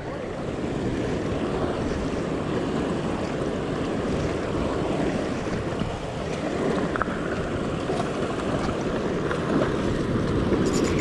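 Ocean swell surging and washing against a rock ledge, a steady rush of surf, with wind on the microphone.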